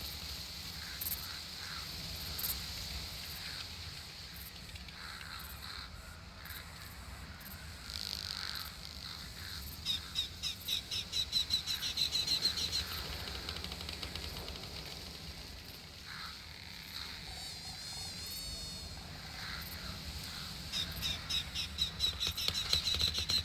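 Summer outdoor ambience: a steady hum of insects, with a rapid run of repeated chirps that rises in pitch and grows louder, heard twice about ten seconds apart. A short warbling call comes in between.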